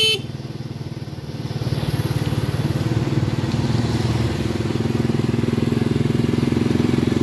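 Motorcycle engine running while riding a motorcycle with a sidecar, with a fast, even pulsing; it picks up and gets louder about a second and a half in, then holds steady.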